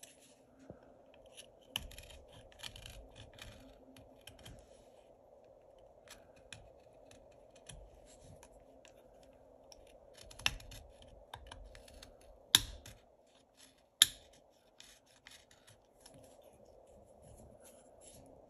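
Utility knife blade whittling a small carved wooden duck lure body: scattered short scratchy shaving cuts, with a few sharp clicks in the second half, the loudest two close together, over a faint steady hum.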